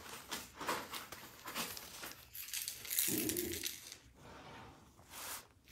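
Newspaper rustling and crinkling as a small puppy moves across a paper-covered floor, in irregular scratchy stretches, with a short pitched sound about three seconds in during the loudest rustle.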